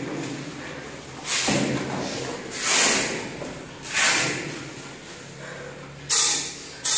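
Kickboxing sparring: a series of short, sharp hissing exhalations that go with strikes, about five of them roughly a second or so apart, along with dull thuds of gloved blows in a large, echoing room.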